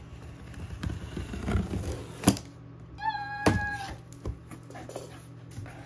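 Scissors cutting the packing tape on a cardboard shipping box and the flaps being pulled open: rustling and scraping, a sharp snap a little after two seconds in, then a short high squeal about three seconds in.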